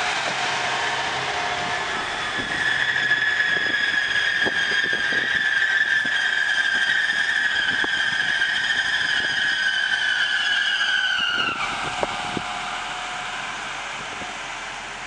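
Trenitalia 'Swing' diesel multiple unit passing close by, its steel wheels squealing on the rails in a high, steady screech with an overtone that dips slightly in pitch and cuts off suddenly about eleven seconds in. A few knocks come from the wheels over the track, and the passing noise fades near the end.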